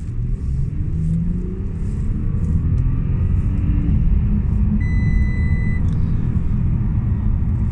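Audi A6 2.8 driving, heard inside the cabin: steady road and engine rumble, with the engine note rising as it accelerates over the first few seconds. A short steady beep sounds about five seconds in.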